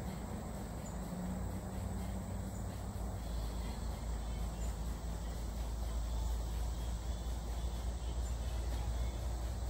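Steady woodland ambience: insects keep up a constant high-pitched drone over a low, even rumble.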